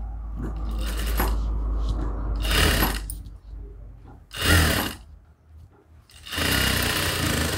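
JACK industrial sewing machine stitching a seam through thin layered fabric in three short runs, about half a second, half a second and over a second long, with pauses between, over a low hum in the first few seconds.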